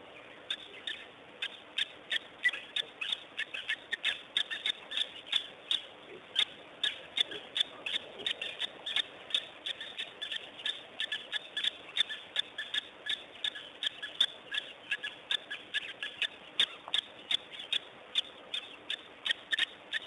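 Short, sharp chirping or clicking calls from an animal, repeated rapidly and unevenly at about three a second over a faint background hiss.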